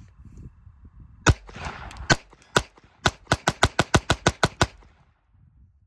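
Taurus TX22 Compact .22 LR pistol firing cheap Federal rounds with no suppressor: three spaced shots, then a fast string of about ten shots at roughly six a second, ending near the end.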